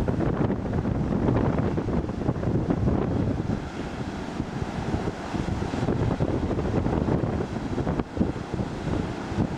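Strong wind buffeting the microphone in constant gusts, over the rush of rough storm surf breaking.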